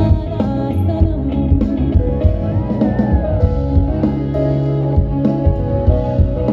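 Live band music played loud through a concert sound system: guitar-led, with a steady beat.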